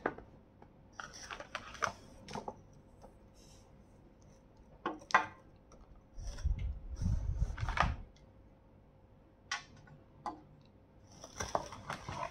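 Handling noise from a product being unpacked: scattered clicks, taps and rustles of a cardboard box and plastic packaging, and items set down on a glass tabletop. There is a longer low rumbling stretch of handling about six to eight seconds in.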